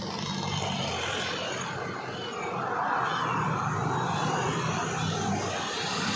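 A motor vehicle engine running with a steady drone, growing louder in the middle and easing off again.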